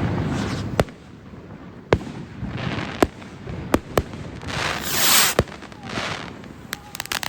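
Fireworks going off: sharp bangs about once a second, with hissing whooshes between them and a quick run of crackling pops near the end.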